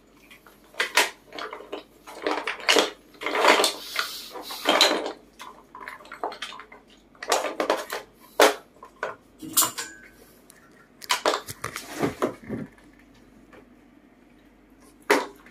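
Wooden puzzle blocks clattering and knocking against each other and their wooden box as a monkey rummages through them, in irregular bursts of sharp clicks, thinning out near the end.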